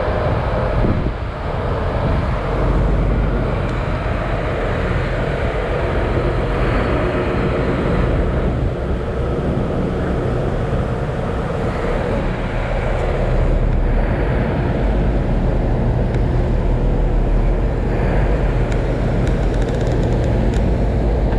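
Pilot boat diesel engines running steadily with a low hum, mixed with churning wake water as the boat manoeuvres alongside.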